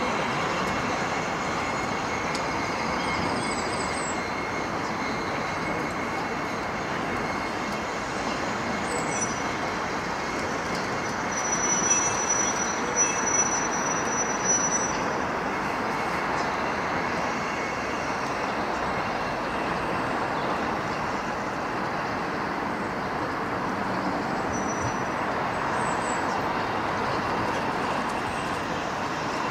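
Steady rumble of a slow steam-hauled goods train of open wagons and a brake van rolling away, with a thin high squeal and a few louder knocks for a few seconds midway.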